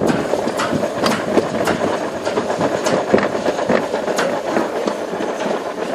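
Toboggan sled running down a stainless steel trough track: a steady rolling rumble with irregular clacks as it runs over the metal.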